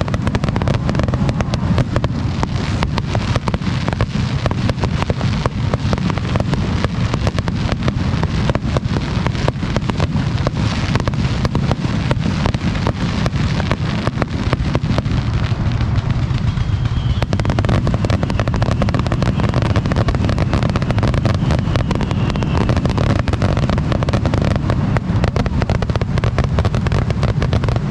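Aerial fireworks bursting in a dense, unbroken barrage: many rapid bangs and crackles overlapping over a continuous low rumble.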